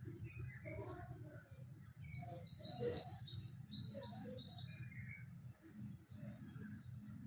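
Newly hatched baby birds chirping in the nest: a dense run of rapid high chirps from about one and a half to five seconds in, over a low steady hum.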